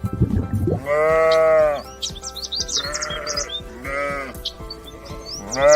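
Sheep bleating: a long bleat about a second in, two shorter calls around three and four seconds, and another long bleat beginning near the end.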